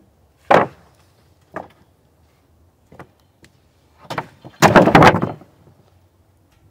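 Freshly sawn blue pine boards knocking and sliding on wood as they are handled off a sawmill bed and onto a lumber stack: a sharp wooden clack about half a second in, a few lighter knocks, then a loud scraping clatter about five seconds in as a board slides onto the pile.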